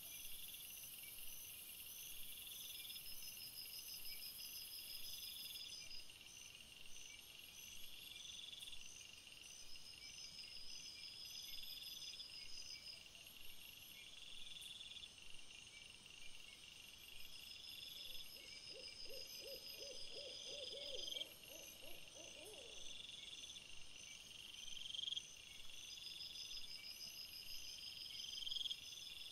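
Faint chorus of crickets chirping in a steady, evenly repeating rhythm. About two-thirds of the way through comes a short run of rapid, lower pulsed calls lasting a few seconds.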